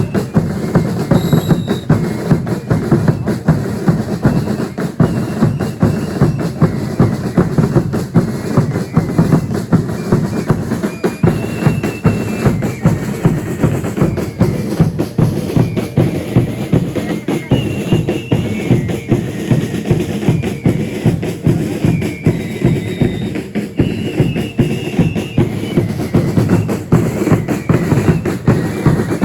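Drums of a religious dance troupe beating a fast, steady rhythm, with brief high pitched notes over it now and then.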